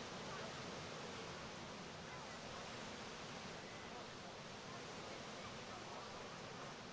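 Steady shoreline ambience: an even hiss of wind and small waves breaking.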